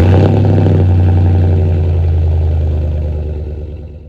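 Engine sound effect for a channel logo sting: a loud, steady, low engine note at idle that fades gradually through the second half and cuts off near the end.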